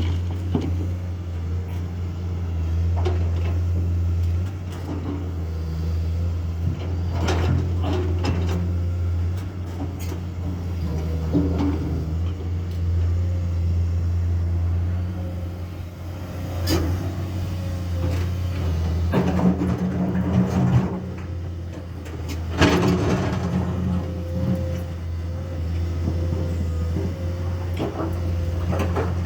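Komatsu hydraulic excavator's diesel engine running steadily at a low drone, with intermittent clanks and knocks from the machine at work, a few of them several seconds apart and a cluster about two-thirds of the way through.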